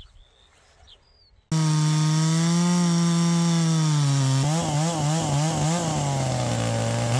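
Large two-stroke chainsaw on a chainsaw mill, running at high revs while ripping a slab from a hard beech log. It starts abruptly about a second and a half in; midway its revs waver rapidly for a second or so as the saw labours in the cut, then it settles at a lower, steady pitch.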